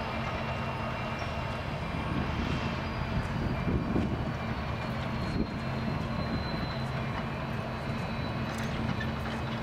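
Union Pacific diesel locomotive's engine running with a steady low drone as the train rolls slowly along the track, swelling a little about four seconds in.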